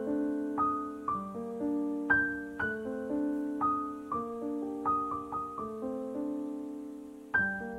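Background piano music: a gentle, slow melody of struck notes and chords that each ring and fade, a new one about every half second.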